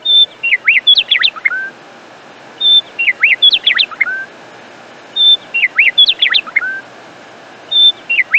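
A bird's song phrase, a brief high note followed by quick sweeping whistles and a lower rising note, repeated identically four times about every two and a half seconds over a steady hiss.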